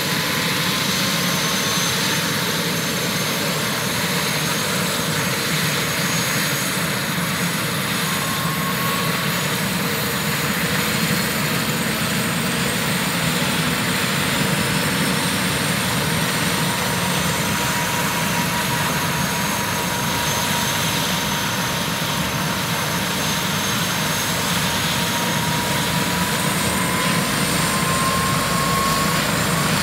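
Airbus H145 helicopter's twin turboshaft engines running as the main rotor spins up on the pad: a steady turbine whine over the rush of the rotor, with thin tones that slowly rise in pitch.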